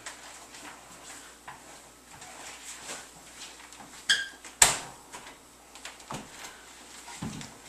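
A heavy hardwood tabletop being tilted down onto a wooden island base: a short squeak about four seconds in, then a loud wood-on-wood knock as it lands, with fainter knocks and rustles around it.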